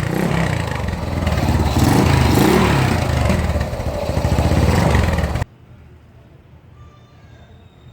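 Suzuki Shogun Pro 125 motorcycle engine with an aftermarket HGM exhaust pipe, revved up and down several times. The sound cuts off abruptly about five and a half seconds in, leaving only a faint background.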